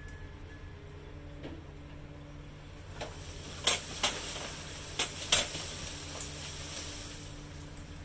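A honeybee swarm being shaken off a tree branch into a cardboard box: a few sharp knocks with crackling rustle of the branch and leaves, the loudest about three and a half seconds in and again around five seconds, over a steady low hum.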